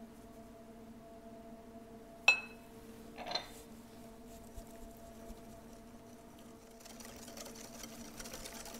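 A metal or glass utensil clinks sharply against the mixing bowl, a bright ringing clink followed a second later by a smaller one. About seven seconds in, a whisk starts beating the gingerbread batter of butter, sugar and molasses in the bowl, a rapid scratchy beating.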